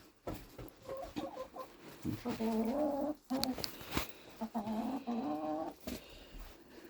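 Chickens clucking: a few short clucks, then two drawn-out calls of about a second each, with a sharp click between them.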